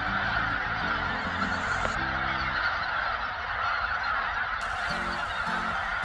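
A large flock of wild geese calling together in a field: a dense, steady din of many overlapping honks.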